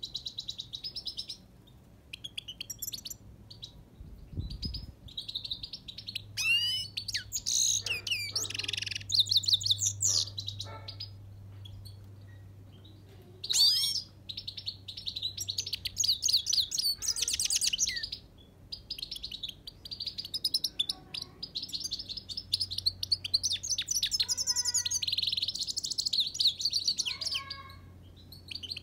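Himalayan (grey-crowned) goldfinch singing: long runs of fast, high twittering song broken by short pauses.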